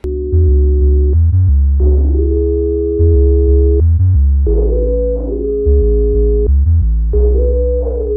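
Background music: a synthesizer track with sustained chords over a deep bass line that changes notes in a steady pattern.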